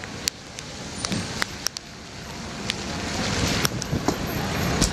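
Steady rain with a pickup truck driving past on the wet road, its tyre hiss growing louder through the second half as it draws near. Sharp taps of drops are scattered through it.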